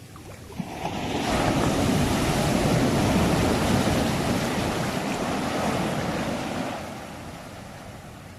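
Sea waves: one wave breaks, its rush of surf swelling about a second in, then fading away near the end over a quieter steady wash.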